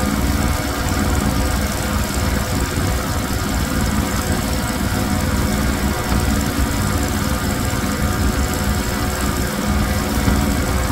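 Pressure washer running steadily: a small engine's drone under the hiss of the water jet spraying a soaked rug.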